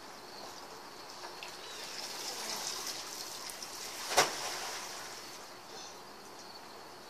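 Pool water sloshing and splashing as a person moves in an above-ground pool, then a single sharp slap about four seconds in as a white plastic pool float is thrown and lands.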